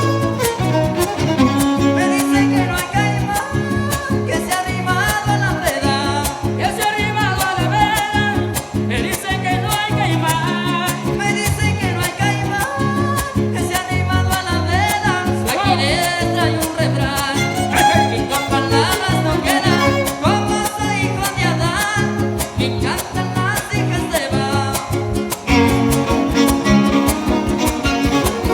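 Huasteco trio playing a huapango: violin carrying the melody over rhythmic strumming of the jarana and huapanguera guitars, with no singing.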